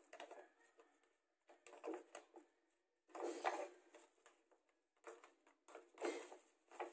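Faint scraping and rustling in several short bursts with quiet gaps between, from hands pressing rice into an empty Spam can used as a mold.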